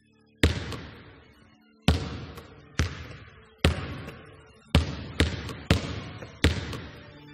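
A basketball bouncing on a hard floor: eight sharp bounces at uneven intervals, each followed by an echoing decay.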